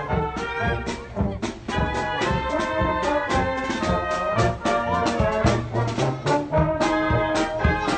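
Brass band music: trumpets and trombones playing a lively tune over a steady beat.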